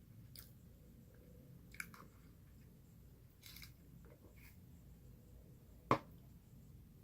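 Quiet chewing of soft chocolate cake with cream filling: wet mouth sounds with a few small clicks, and one sharp click about six seconds in.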